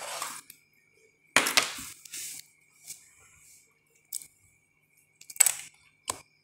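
Handling noise from the SATA and power cables being readied: a few short rustles and clicks, the loudest about a second and a half and five and a half seconds in, over a faint steady high-pitched whine.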